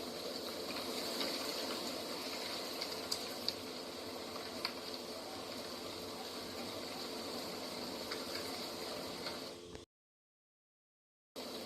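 Steady outdoor nature ambience: a constant rushing, bubbling noise with a few faint clicks. The sound cuts out to complete silence for about a second and a half near the end, then resumes.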